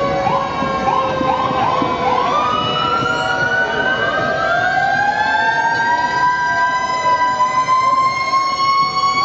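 Several fire engine sirens sounding together: a few quick rising whoops in the first two seconds, then a long wail that rises slowly and holds at a high pitch.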